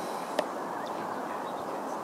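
Steady outdoor background noise, with one sharp click about half a second in.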